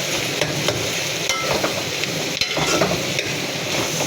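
Sliced bitter gourd and onions sizzling in hot oil in a kadhai while being stir-fried until brown, with short scrapes of the stirring utensil against the pan every second or so.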